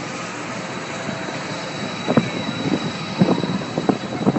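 Giant pendulum amusement ride in motion, a steady rumble. About halfway through comes a run of short, sharp knocks and clatters as the spinning gondola sweeps in close.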